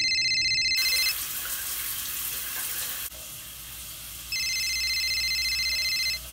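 A phone ringing with an electronic ring tone, one ring ending about a second in and another starting about four seconds in. Between the rings, water runs with a steady hiss, loud for about two seconds and then fainter.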